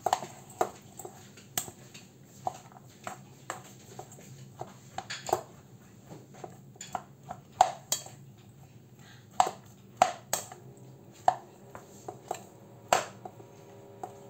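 White plastic rice paddle tapping and scraping against a stainless steel mixing bowl while sushi rice is stirred with vinegar: irregular clinks and knocks, a few every second.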